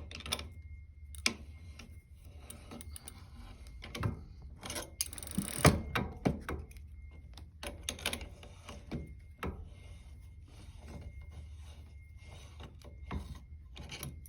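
Scattered light clicks, knocks and a brief scrape of metal parts as a bicycle pedal is screwed clockwise into the right crank arm of an electric bicycle.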